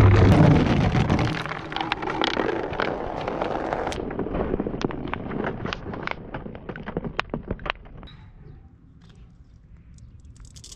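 A crowd of marbles rolling down a track in a dense, loud rattle. It thins after a second or two into many separate clicks and clacks of marbles knocking together, then fades to a few faint ticks after about eight seconds.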